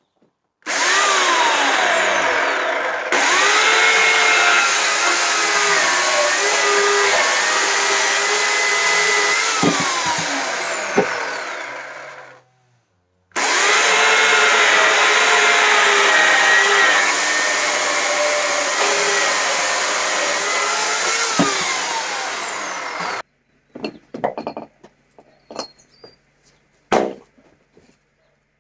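Corded electric chainsaw cutting through a dry pine log in two long cuts of about ten seconds each, the motor's pitch dropping as the chain bites into the wood and falling away as each cut ends. Then a run of sharp knocks as a hatchet splits the pine into kindling.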